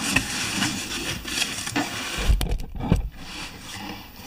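Cardboard shipping box being opened by hand: flaps scraping and rubbing and packing paper crackling, with a couple of dull knocks a little past halfway through.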